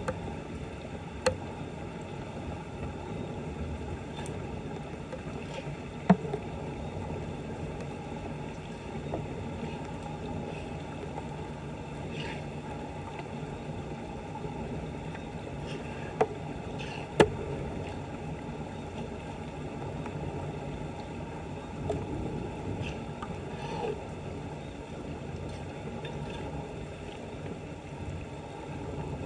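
Floodwater running steadily, with a few sharp knocks or clicks.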